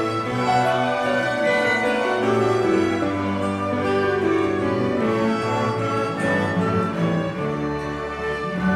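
Orchestra of violins, cellos, double bass, flutes and brass playing an instrumental passage of a hymn, with held string and wind notes.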